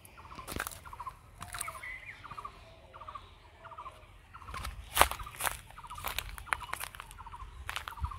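Footsteps crunching over dry leaf litter and straw, with a short rattling animal call repeating about twice a second in the background. The loudest sound is a sharp crunch about five seconds in.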